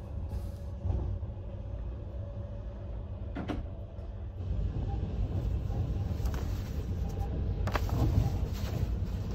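Steady low rumble of a moving sleeping car, heard from inside the compartment, with a few short clicks and knocks.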